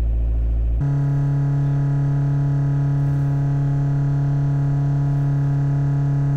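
Volkswagen Golf IV 1.9 TDI four-cylinder diesel engine, warmed up, changing abruptly about a second in from a low idle to a steady drone held at raised revs, around 2000 rpm.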